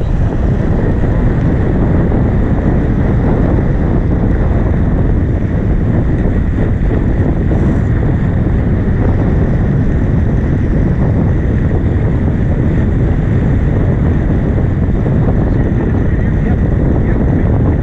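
Steady wind buffeting the microphone on a sailboat under way, over the rush of water past the hull and bow wave.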